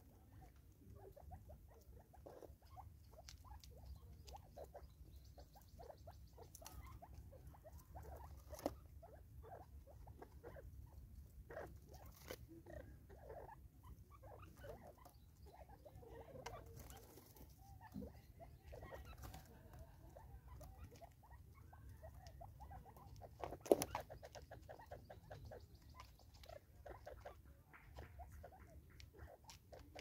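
Spurfowl pecking seed from a plastic feeder on a wooden stump: faint, irregular ticks and taps with light rustling, and one louder knock about 24 seconds in, over a steady low rumble.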